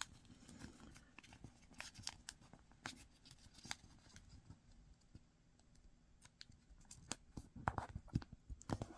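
Origami paper being folded and creased by hand: faint, scattered crinkles and taps, a little busier near the end.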